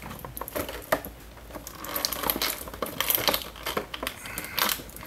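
Thin clear plastic bag crinkling and crackling in the hands as a small action-figure accessory is unwrapped from it, with scattered light clicks; the crinkling gets busier and louder about halfway through.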